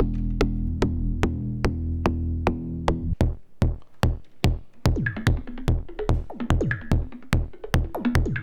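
Electronic percussion loop from a Make Noise Shared System modular synthesizer: sharp clicks ticking evenly about two and a half times a second over a low drone. The drone cuts out about three seconds in, leaving kick hits that drop in pitch alongside the clicks.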